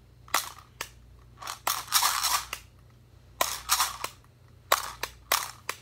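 Small plastic toy popcorn maker being handled: a string of sharp plastic clicks and clacks, with two short clattering runs about two seconds and three and a half seconds in.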